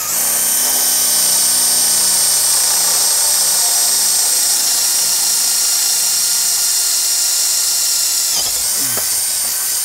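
Makita cordless drill running steadily under load as it bores a half-inch hole through a wooden beam at the steel paddle tab. Its whine sags briefly about eight seconds in, then picks back up.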